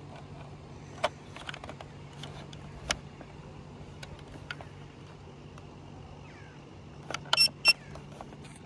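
Plastic clicks from the bait boat's hand-held remote control as its buttons and sticks are handled, then two short, loud high-pitched beeps close together near the end, over a steady low hum.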